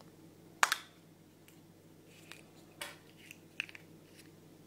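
A Kinder Surprise milk-chocolate egg shell snapping apart with one sharp crack about half a second in, followed by a few softer clicks and crackles as the chocolate halves are pulled apart around the plastic toy capsule.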